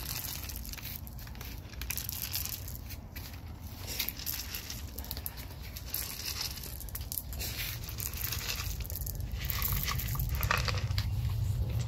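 Dry cat kibble rattling and scattering as it is shaken from a plastic cup onto concrete, with crinkly rustling and many small irregular clicks.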